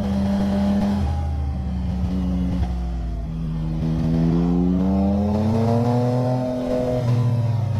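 Vehicle engine pulling through the revs on a twisty road: the engine note drops about a second in, climbs steadily from about four seconds, and eases off again near the end.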